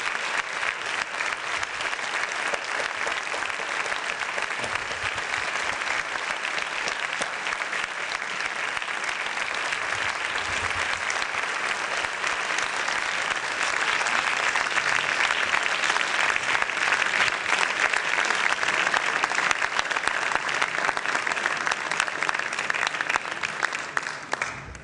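Audience applauding, a dense clapping that grows louder about halfway through and cuts off suddenly near the end.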